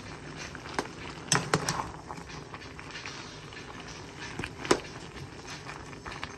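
Metal spoon clinking and scraping against the side of a metal cooking pot while a thick vegetable curry is stirred: a few sharp clicks, two close together about a second and a half in and one louder near the end, over a low steady background hum.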